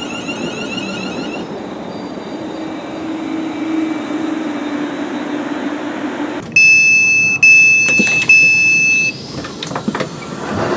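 Class 350 Desiro electric train standing at the platform with a steady low hum; about six and a half seconds in, its door-closing warning sounds as three loud high beeps, followed by a few knocks as the sliding doors shut.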